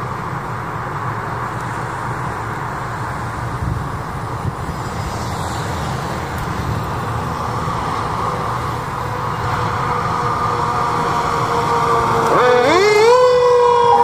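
Fire engine approaching, its engine and tyre noise slowly growing louder. About twelve seconds in, its air horn sounds: the pitch sweeps up quickly, then holds a loud steady tone that sags slightly in pitch as the truck goes by.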